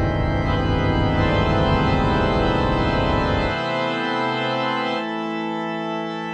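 Organ music playing sustained chords over a deep bass. The bass drops out just past halfway, leaving higher held notes.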